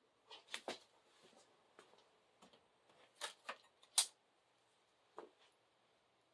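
A scattering of light clicks and taps from small objects being handled, the sharpest about four seconds in.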